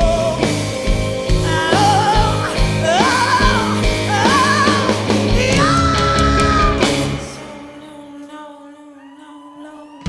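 Blues-rock song in an instrumental break: a singer holds high wordless wailing notes with vibrato over a full band. About three-quarters through, the band drops away to a soft, quiet passage.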